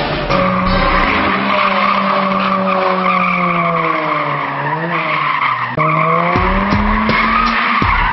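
Car tyres squealing continuously under wheelspin, as in a drift or burnout, over the engine held at high revs. The engine note sags gradually, drops away sharply about six seconds in, then rises again as the throttle is reapplied.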